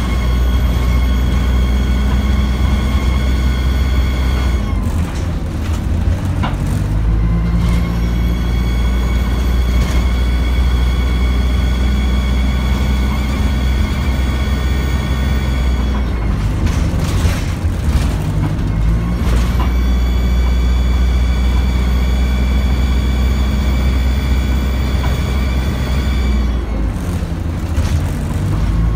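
Dennis Dart single-deck bus heard from inside the saloon, its diesel engine running with a deep steady drone as it drives. A high whine rises and holds as the bus pulls away and dies down as it slows, twice over, with a few brief knocks and rattles.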